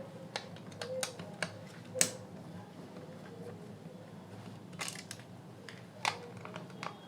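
Scattered light clicks and taps of tools and plastic parts being handled as a small Bluetooth speaker is taken apart, the sharpest about two seconds in, with a faint steady hum underneath.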